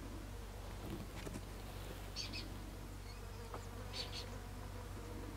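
Steady buzzing of flying insects, with a short double call from a bird about two seconds in and again about four seconds in.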